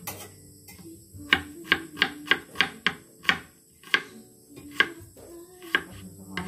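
Kitchen knife chopping small red onion on a wooden cutting board. A quick run of sharp knocks comes a little over a second in, then single chops about a second apart.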